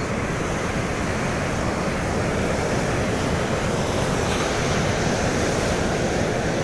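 Indian Ocean surf breaking and washing up a sand beach, mixed with wind buffeting the microphone: a steady rushing that grows slightly louder.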